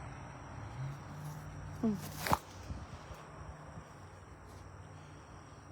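Steady high-pitched insect chorus over a low steady hum in an evening garden, with a short falling voiced 'mm' and a sharp click about two seconds in.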